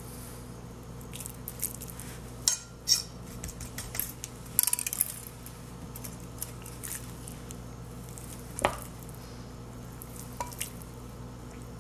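Raw marinated chicken pieces handled and pushed onto a wooden skewer: scattered soft wet squelches and short clicks, with a few taps against a glass baking dish, over a steady low hum.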